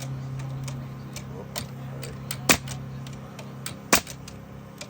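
Pneumatic nail gun firing two sharp shots about a second and a half apart, with lighter ticks between, over a steady low hum.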